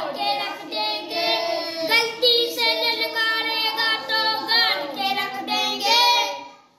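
A group of young boys singing together, their held notes bending in pitch; the singing fades out near the end.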